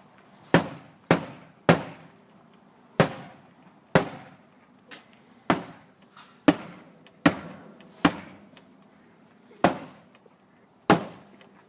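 An old refrigerator's cabinet being beaten: about eleven hard blows at an uneven pace, each a sharp bang with a short ringing tail.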